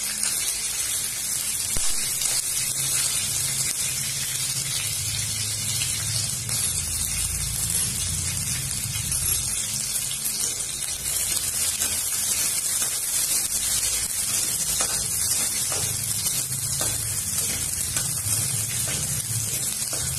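Garlic and green chillies sizzling in hot mustard oil in a kadhai, stirred with a spatula: a steady hiss with a low rumble beneath and a few faint clicks in the second half.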